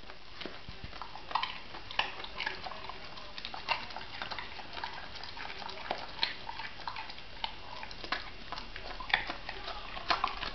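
Springer spaniel crunching and chewing a carrot: irregular crisp crunches, several loud ones among many smaller ones.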